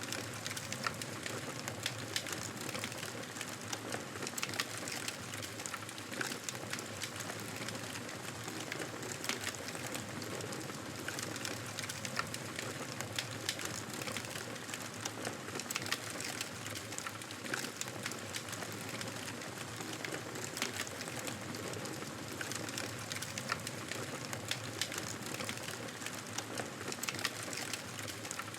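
Fire burning in a fireplace: a steady hiss of flames with frequent, irregular small crackles and pops.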